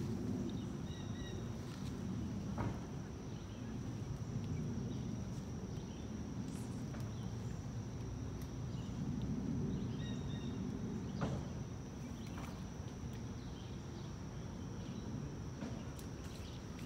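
Outdoor ambience at a wooded pond edge: a steady high-pitched buzz, scattered short bird chirps and a low rumble, with two sharp clicks, one a few seconds in and one about two-thirds of the way through.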